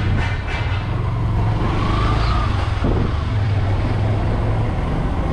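Vehicle engine running at a steady speed while on the move, with a steady low hum under road and wind noise.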